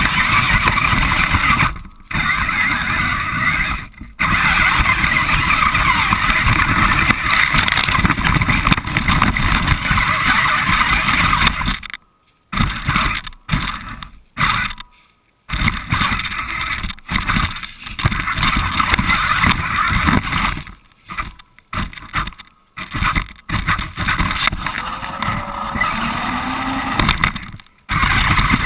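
RC car driving, heard from a camera mounted on the car itself: a loud, rough mix of motor noise and rumble from the wheels over the ground. The sound cuts out to dead silence abruptly many times.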